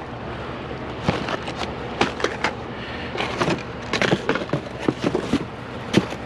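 Small toy cars clattering and knocking against each other and the box as they are rummaged through, in irregular clicks with a few sharper knocks.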